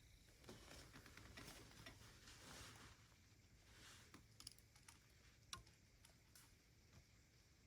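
Near silence with faint scattered rustling and small sharp clicks, the sharpest tick about five and a half seconds in.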